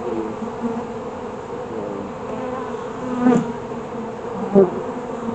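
Honeybees buzzing around an opened hive during an inspection, a steady many-bee hum. It swells briefly a little after three seconds in.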